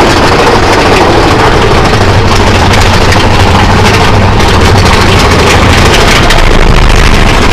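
Big Thunder Mountain Railroad mine-train roller coaster running on its track: a loud, steady rumble with rapid clattering clicks.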